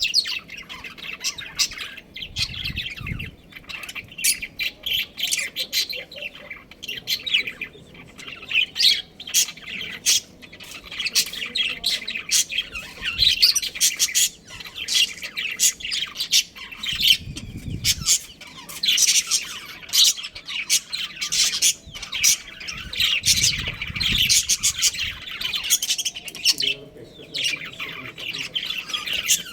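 Budgerigars chattering: many rapid overlapping chirps and squawks with no break. A few short low thuds sit under the calls.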